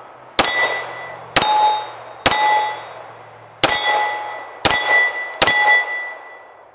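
Six shots from a CZ 75 SP-01 9mm pistol, roughly a second apart with a slightly longer pause after the third. Each shot is followed by the bright ring of a steel plate target being hit, and the last ring fades out about a second after the final shot.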